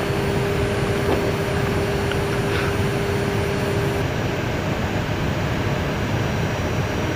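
Steady cockpit noise of an Airbus A320 taxiing, its engines and ventilation running, with a steady hum that cuts off about four seconds in.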